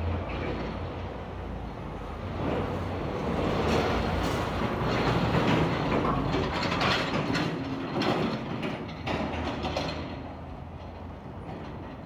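A semi-truck passes close by. Its engine and tyre noise build, peak and fade, and the trailer rattles and clanks loudly as it goes.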